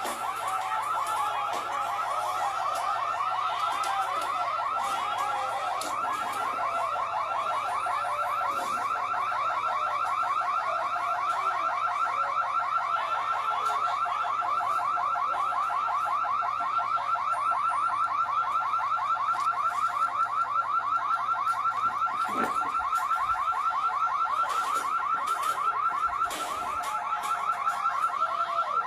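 An electronic alarm sounding without a break, a rapidly pulsing tone.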